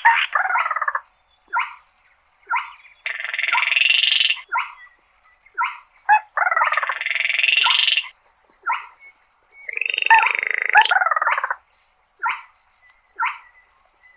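Baillon's crake calling: dry rattling trills, each a second or two long, with short single notes in between.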